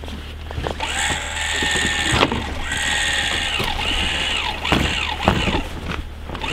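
Electric actuator on a grooming drag whirring in two spells as it moves the drag's teeth up and down to set the height for hooking onto the snowmobile hitch, with a few sharp metal clunks of the hitch.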